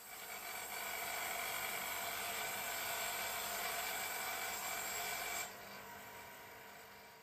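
Electric-motor-driven abrasive wheel scrubbing rust off a square steel tube fed through on rollers: a steady rasping hiss with a high whine. About five and a half seconds in the tube clears the wheel and the sound drops suddenly to the quieter motor and wheel running on, fading.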